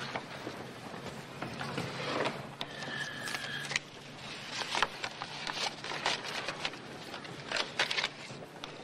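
Desk foley: a pen scratching a mark on the paper, then papers and small objects handled and set down on a wooden desk, with a run of sharp clicks and knocks in the second half. A brief high tone sounds about three seconds in.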